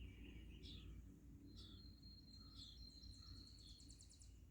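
Faint wild birdsong: short, high, downward-sliding chirps repeating every half second or so, a thin high whistle held for a couple of seconds, and a fast high trill near the end.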